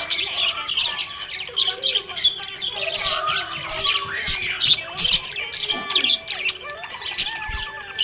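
Small pet parrots chirping in a busy, continuous chatter of short, overlapping high calls.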